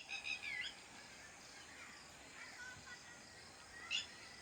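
Birds chirping outdoors: a quick run of short chirps that slide down in pitch, fainter calls after it, and another short call about four seconds in.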